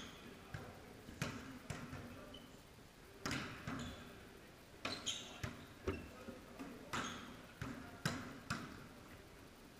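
Volleyballs being hit and passed and bouncing on a hardwood gym floor: about a dozen sharp smacks and thuds, half a second to a second apart, echoing in a large hall.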